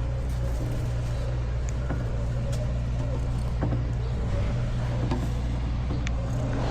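Steady low engine rumble, as of a motor vehicle idling, with a few faint short clicks.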